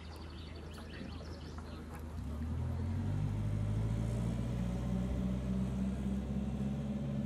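A low, steady hum made of several stacked tones swells in about two seconds in and holds. Faint bird chirps are heard in the first second or so.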